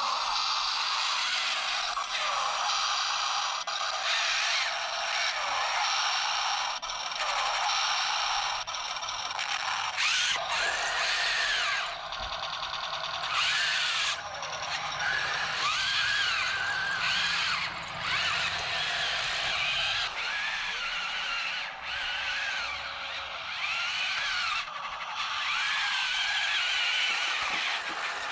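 Small 1/30-scale RC battle tanks running: the whine of their little electric drive motors and gearboxes rises and falls in pitch over and over as they drive and turn, over a steady mechanical rattle.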